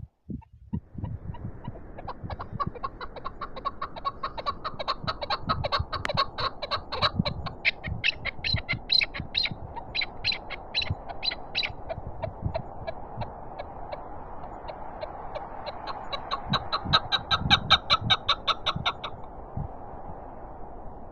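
Chukar partridge calling: a long run of rapid clucking notes, about four or five a second, for about ten seconds, then a second run near the end. Steady wind noise with low buffeting thumps runs underneath.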